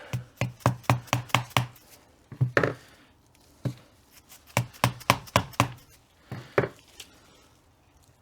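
Sharp taps of a tool being struck in quick runs with short pauses, working apart the halves of a Getrag 226mm limited-slip differential.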